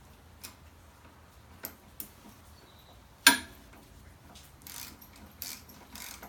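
Light metal clicks and taps from tools and parts on a motorcycle brake caliper as a bolt is threaded in, with one sharp clack about three seconds in, then a few short scraping sounds near the end.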